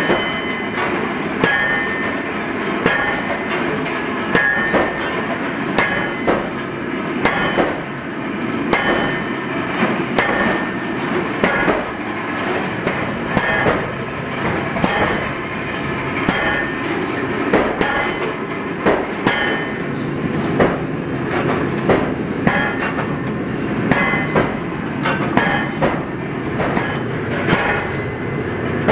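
Metalworking shop din: a steady clattering noise with frequent irregular metal clanks and knocks, a few of them ringing briefly, as steel scissor blanks are forged and handled.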